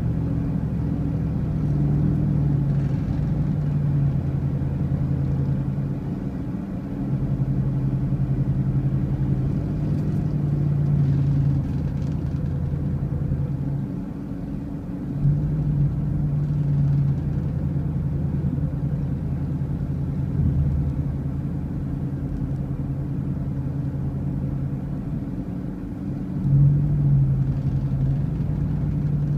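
A motor vehicle on the road, running with a steady low rumble. Its engine note steps up and down several times as the speed changes.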